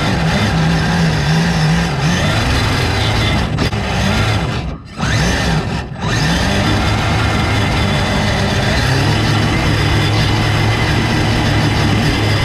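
Electric motor and gear drivetrain of a Gen8 RC rock crawler, heard from a camera mounted on the truck as it drives over grass: a steady whine and grinding whose pitch shifts with the throttle. The sound drops away briefly twice about five seconds in, when the throttle is let off.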